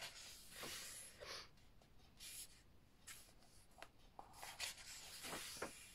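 Faint paper rustles and several short swishes as the pages of a large book are turned and smoothed flat by hand.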